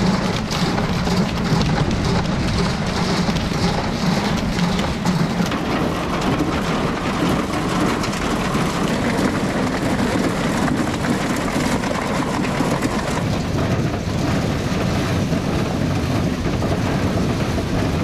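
Ear corn clattering steadily up a metal chain-and-flight elevator and sliding from the wagon into its hopper, with the tractor that drives the elevator, a Farmall Super M-TA, running underneath.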